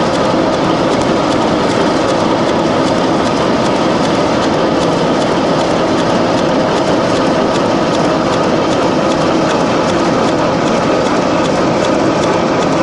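Industrial wood chipper driven by a large electric motor, running steadily with a constant clatter of many small rapid clicks.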